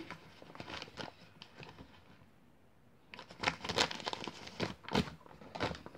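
Crinkling and rustling of the cornstarch packet as it is handled and poured, in short scattered bursts, quiet for a moment around the middle and then busier and louder over the last three seconds.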